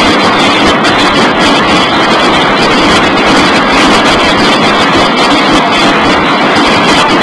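Drum section of a school banda de guerra playing on snare drums, loud and unbroken.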